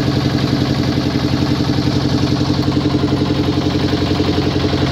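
A boat's engine running steadily with a fast, even throb.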